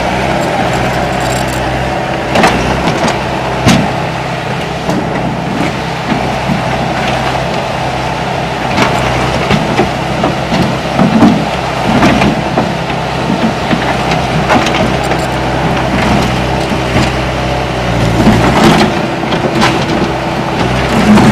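Bobcat T300 compact track loader's diesel engine running steadily under load while its steel bucket scrapes through broken driveway rubble, with scattered clatters and knocks of chunks shifting.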